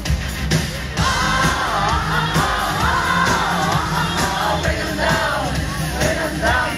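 Amplified pop music from a live sound check: a lead singing voice carries a melody from about a second in over a steady beat and bass.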